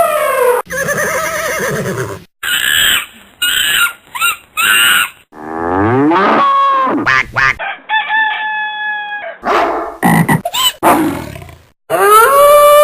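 A quick run of short, different animal-like call sound effects, one after another with abrupt cuts and brief gaps between them. Some are held pitched calls and some slide up or down in pitch.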